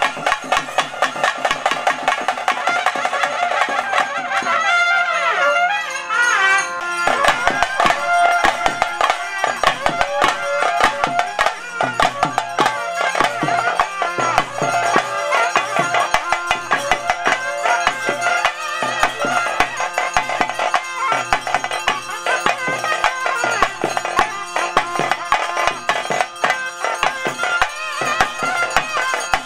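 Live traditional ritual music: a piercing wind instrument plays a wavering, gliding melody over a steady drone, driven by fast, continuous drumming.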